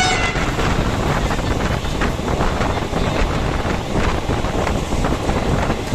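Wind buffeting the microphone over the steady rumble of a moving train, with faint irregular clicks from the wheels on the rails.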